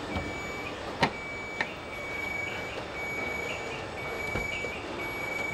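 Car assembly line noise with a high electronic warning beep repeating about every half second, and two sharp metallic clicks about a second in.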